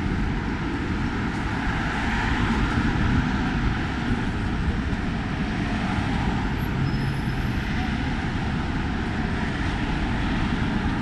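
Steady city street ambience on a busy avenue: an even wash of traffic noise with no single event standing out.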